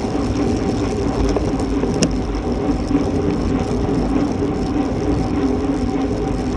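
Wind and road noise from a bicycle ridden at about 24 mph: a steady rush of air over the microphone mixed with the whir of tyres rolling on asphalt, and a single click about two seconds in.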